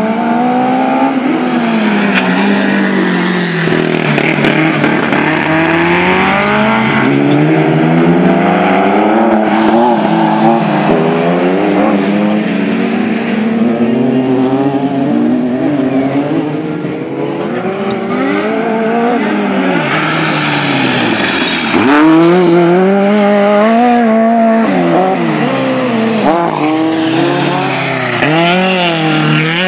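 Autocross race cars' engines revving hard and easing off as they race on a dirt track, the pitch climbing and dropping again and again with throttle and gear changes. The sound grows louder from about twenty seconds in as cars come close.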